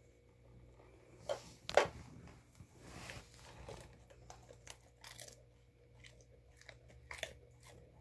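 Golden retriever working a plastic treat-puzzle toy with her nose and mouth: irregular clicks and knocks of the plastic lids and pieces, with her chewing a treat. The loudest is a single sharp clack just under two seconds in.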